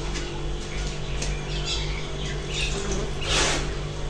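Steel-wool scrubber scouring the wet, soot-blackened top and burner of a gas stove in irregular scratchy strokes, the strongest a little over three seconds in, over a steady low hum.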